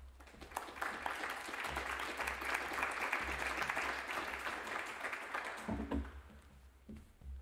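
Applause from a small seated audience. It swells about half a second in and dies away after about six seconds, with a low knock as it fades.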